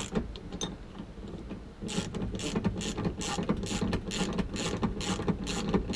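Socket ratchet clicking as a 14 mm seat-belt anchor bolt is backed out, settling about two seconds in into a steady rhythm of about three to four clicks a second.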